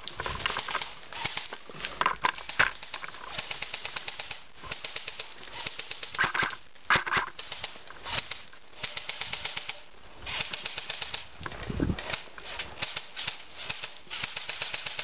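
A person moving quickly through woods over dry leaves and brush, with runs of quick, even clicks and rattles and a few louder rustles. There is one dull thump about twelve seconds in.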